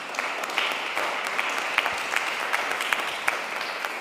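Audience applauding: many people clapping together, a dense, steady patter of claps.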